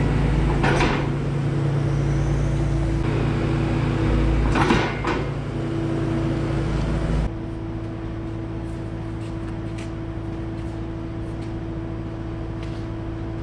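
Kubota skid steer's diesel engine running steadily while it pushes a heavy roll of steel-reinforced rubber belting across the barn floor, with two short crackling thumps in the first half. About seven seconds in, the engine sound drops to a quieter, steady hum.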